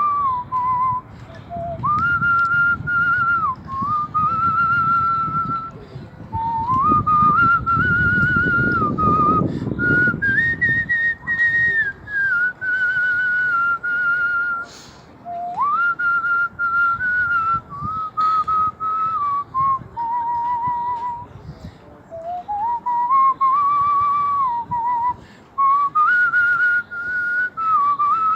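A man whistling a tune by mouth: long held notes joined by slides up and down, in phrases with short pauses between them.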